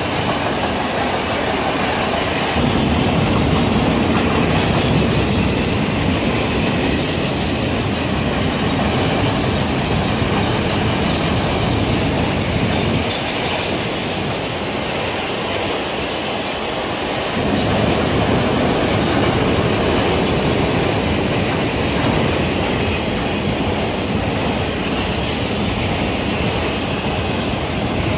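Freight train of enclosed autorack cars rolling past at close range: the steel wheels on the rails make a steady, loud noise that eases for a few seconds midway, then comes back up.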